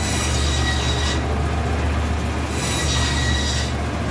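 Electric meat band saw running with a steady low hum, and a high squealing whine that comes in twice for about a second each time.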